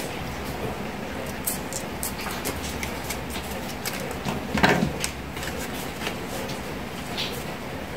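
Hands handling paper and plastic craft materials: scattered small clicks and ticks over a steady hiss, with one louder rustle and knock about halfway through.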